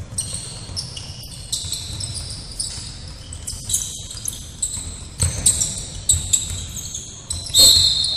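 Basketball being played on an indoor court: sneakers squeaking again and again on the floor, with the ball's dribbles and footfalls thudding. A louder, longer high squeal stands out near the end.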